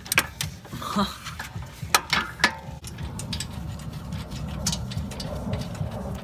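Sharp metal tool knocks and clicks at the brake caliper bracket as a just-loosened caliper bolt is worked out, four in the first two and a half seconds, then a low steady rumble.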